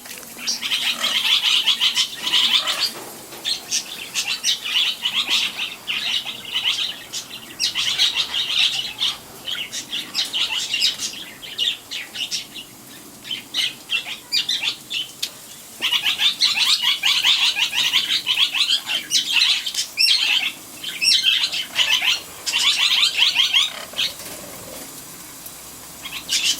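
Pet parrot, wet from its bath, flapping and squawking in bouts of a few seconds each, made of rapid crackly strokes with short quieter gaps between.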